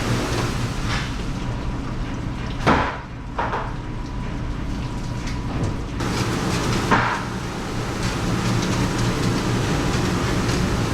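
Steady drone of restaurant kitchen machinery, with three sharp knocks or bangs: two close together about three seconds in, and one about seven seconds in.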